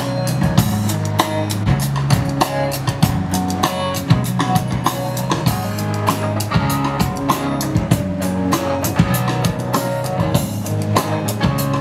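A rock band's song with a drum kit keeping a steady beat under electric guitars and a sustained bass line.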